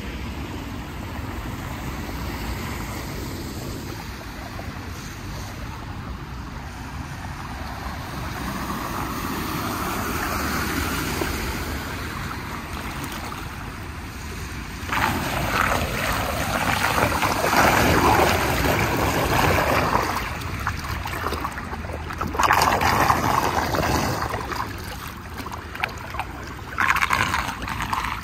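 Flood water swirling down a storm drain in a whirlpool, a steady gurgling wash that grows louder for a few seconds at a time in the second half.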